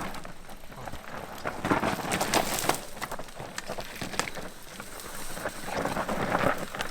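Mountain bikes riding over rocks, tyres crunching and the bikes clattering with sharp knocks, swelling about two seconds in and again near the end, with some wind on the microphone.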